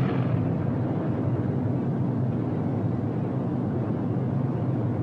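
Steady drone of a B-17 Flying Fortress's four Wright Cyclone radial engines at full takeoff power during the climb-out: an even low hum under a rushing noise.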